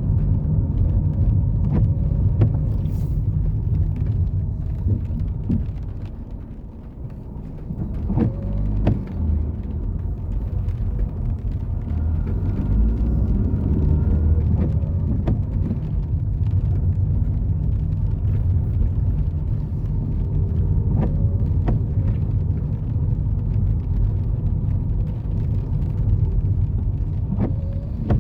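Road traffic: cars running past with a steady low rumble that eases off briefly about six seconds in.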